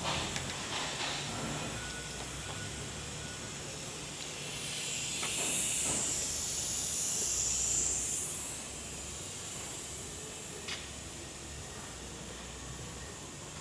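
Compressed air hissing from the pneumatic system of a multi-spindle dowel drilling machine for about four seconds, over a low steady hum, followed a couple of seconds later by a single short click.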